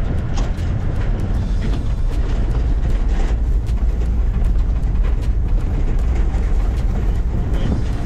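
A farm vehicle driving slowly over rough paddock ground, heard from inside the cab: a steady low engine and tyre rumble with the body rattling and knocking over the bumps.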